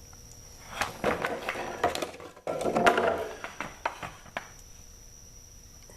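Handling noise from a chainsaw's plastic housing: a run of clicks, knocks and rubbing for a few seconds, with a sharper clatter about two and a half seconds in.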